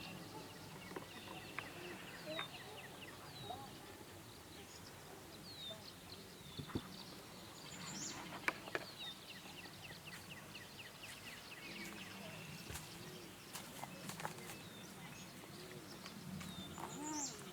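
Mixed bird calls: high chirps and short down-slurred whistles repeat throughout, with lower arched croaking calls growing more frequent near the end.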